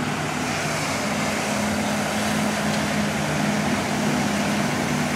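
A motor vehicle engine running steadily: a low, even hum under a broad rush of noise.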